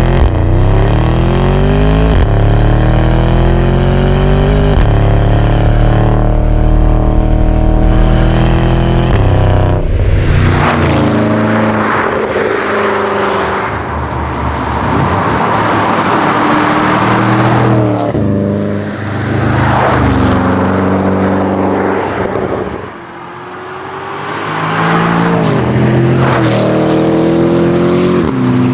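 Modified Porsche Panamera Turbo S twin-turbo V8 accelerating hard, its note climbing and dropping back at upshifts about 2, 5 and 9 seconds in. From about 10 seconds the car is at speed with heavy wind and tyre noise, the engine note rising and falling as it pulls again, with a brief lull about 23 seconds in.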